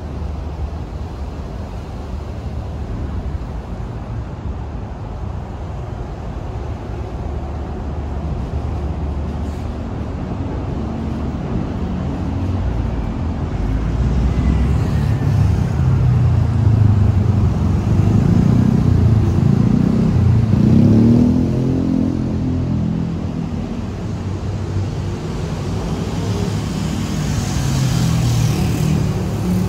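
Road traffic on a city street: low engine rumble that swells as a vehicle passes close by about two-thirds of the way through, its engine note shifting in pitch, then builds again near the end as another approaches.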